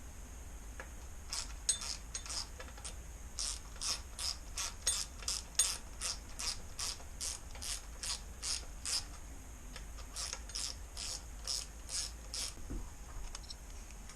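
Ratchet wrench worked in quick repeated strokes, its pawl clicking about three times a second, in two runs with a short pause about two thirds of the way through.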